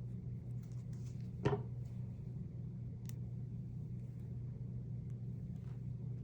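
Steady low background hum, with one sharp tap about a second and a half in and a couple of faint light ticks later, from paper and craft materials being handled.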